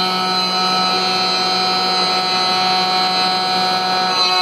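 Wood router spindle of a Maslow CNC cutting through plywood: the motor runs with a steady whine over the noise of the bit in the wood.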